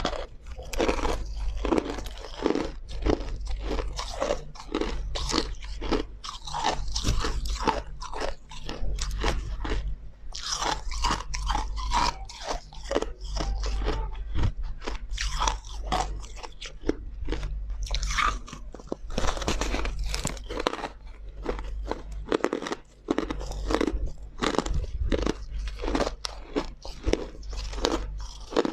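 A person biting and chewing white crushed ice close to the microphone: dense, irregular crunching. A steady low hum runs underneath.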